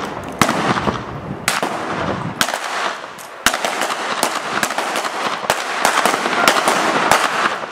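Gunfight with guns firing blanks: about a dozen sharp shots at irregular intervals, some in quick pairs, through several seconds.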